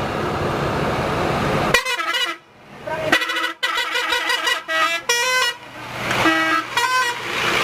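Bus 'telolet' musical air horn playing a run of short notes that step up and down in pitch, starting about two seconds in after a stretch of noise and ending near the end.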